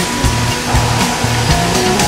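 Background music with a steady beat, over a steady rushing hiss of water spray from a train wash.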